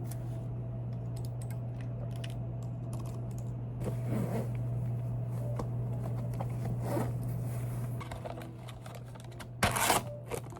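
Typing on a computer keyboard: irregular key clicks over a steady low hum, with a brief louder clatter near the end.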